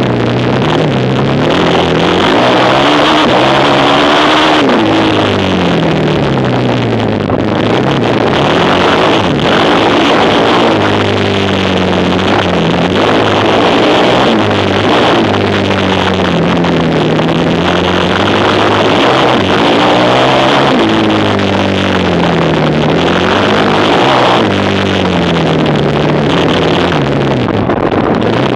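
Racing quad engine running hard, its pitch rising and falling every few seconds as it accelerates and backs off, over and over.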